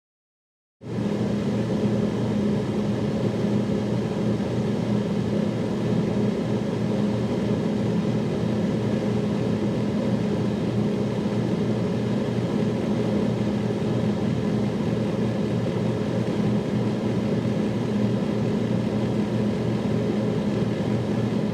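Freezer running, heard from inside the freezer compartment: a steady low mechanical hum with a few held low tones, starting abruptly about a second in.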